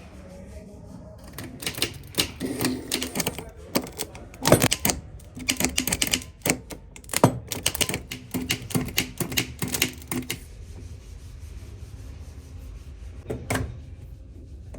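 Rapid run of sharp metallic clicks and knocks from hand tools working on a car starter motor, then a quieter spell with one more knock near the end.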